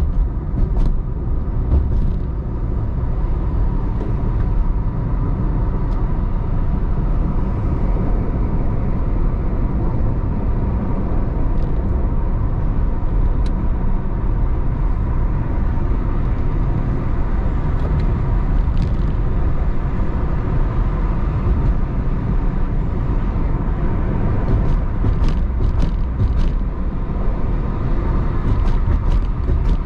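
Car driving along with a steady low rumble of engine and road noise, and a few faint clicks near the end.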